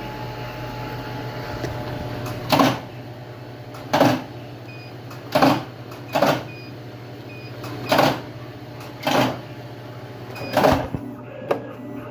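Tape-cutting machine running with a steady hum, its blade making a short, sharp cutting stroke every one to one and a half seconds, about eight cuts in all, the last one weaker.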